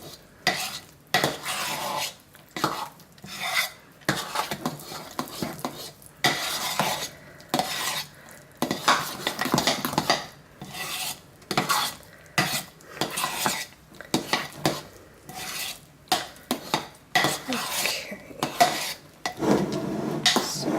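A utensil stirring thick hot-process soap batter in a pot, scraping round the pot in repeated strokes with short pauses between. The essential oils are being mixed into the cooked, cooled-down batter.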